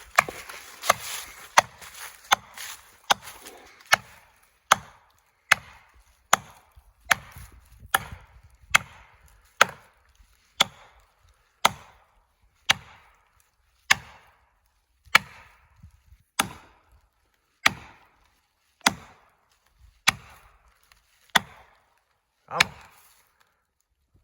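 Repeated hammer blows driving felling wedges into the cut of a large red oak: about two dozen sharp strikes, the pace slowing gradually. This is wedging to tip over a tree that leans the wrong way against a thick hinge.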